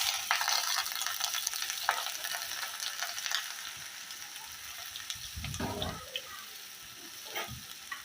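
Sliced onions sizzling in hot oil in a karahi, just added. The sizzle is loudest at first and gradually settles, with a few dull stirring knocks in the second half.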